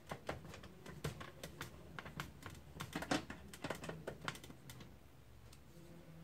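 Screwdriver working the screws on the end of a plastic Lexmark MS510 drum cartridge, with the parts being handled: a run of small, irregular clicks and ticks that thins out after about five seconds.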